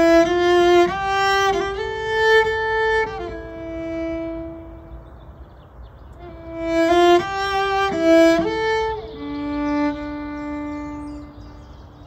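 Solo cello bowed high on its range in a slow improvisation: two short phrases of notes stepping upward, each sinking back to a lower note that is held. The second phrase ends on a long low note that fades near the end.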